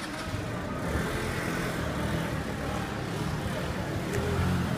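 Street ambience dominated by a motor vehicle's low rumble, swelling near the end, with faint voices behind it.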